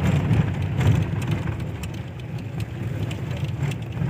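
Vehicle engine and tyres on a rough gravel road, heard inside the cabin: a steady low rumble with scattered rattles and knocks from the bumpy surface.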